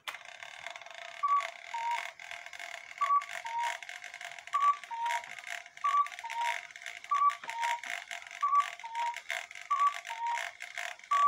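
One-day cuckoo clock calling the hour of eight: the bellows cuckoo sounds its two-note call, high then low, eight times about every 1.3 seconds. Under the calls the movement whirs and clicks steadily.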